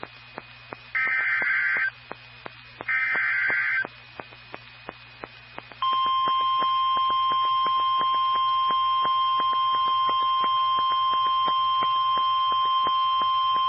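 NOAA Weather Radio EAS alert: two short bursts of warbling two-pitch digital screech, the SAME data header that opens an alert, then about six seconds in the steady single-pitch 1050 Hz warning alarm tone starts and holds.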